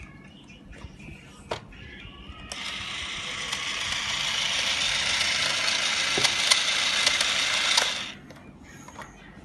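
Small battery-powered motor in a toy kitchen appliance whirring with a hissy, rattly sound for about five and a half seconds, then cutting off suddenly, with a few clicks before and during it.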